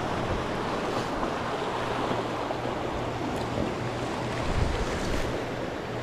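Ocean surf washing in steadily, mixed with wind buffeting the microphone.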